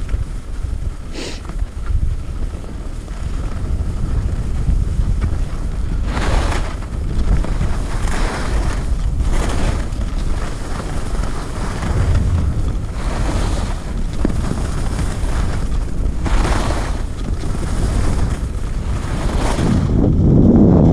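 Wind buffeting the microphone of a skier's action camera during a downhill run, a steady low rumble, with the hiss of skis scraping and carving on packed snow swelling at each of several turns.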